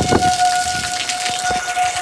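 An alarm sounding one steady high tone without a break, over the hiss and patter of rain.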